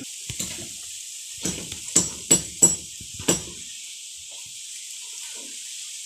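Hammer blows on wooden concrete formwork: about seven sharp, irregular knocks in the first three and a half seconds, then they stop.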